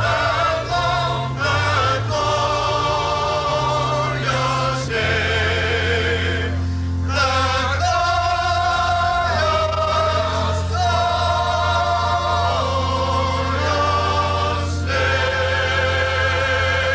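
Background music: a choir singing a slow hymn with vibrato over sustained low organ-like bass notes.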